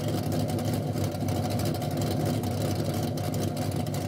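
Car engine idling steadily, a low, even exhaust note with no revving.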